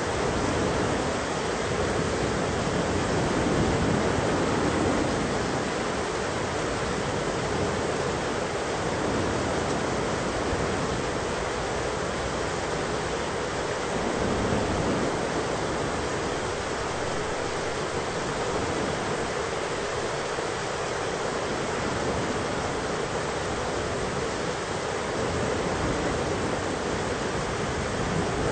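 Steady heavy rain of a thunderstorm, a continuous rushing hiss that swells slightly a couple of times.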